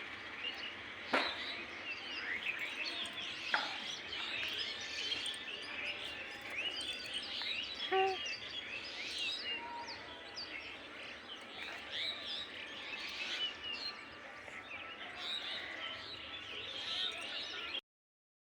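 A dense chorus of many small birds chirping and calling all at once, with two sharp clicks in the first few seconds. The sound cuts out abruptly just before the end.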